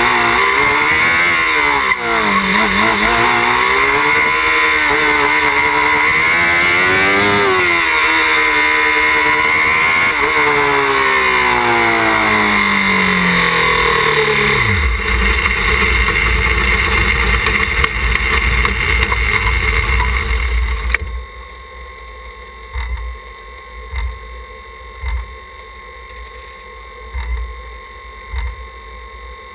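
Small open-wheel race car's engine revving up and down, then its revs slide steadily down and the engine stops just under halfway through. This is the engine being cut as it overheats. Tyre and road noise carries on as the car coasts to a halt, followed by quieter faint intermittent thumps.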